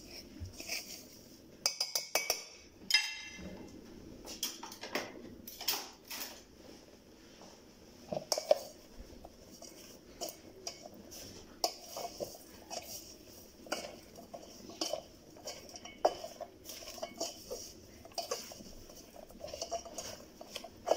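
Kitchen utensils and dishes clinking and knocking: irregular short clatters throughout, with a brief metallic ring a couple of seconds in.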